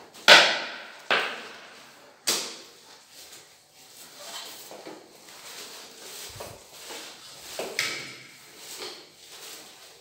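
Three sharp knocks in the first couple of seconds, the first loudest, each ringing briefly. Then a long-handled tool swishes in strokes about once a second across a cement-coated shower floor that is being waterproofed.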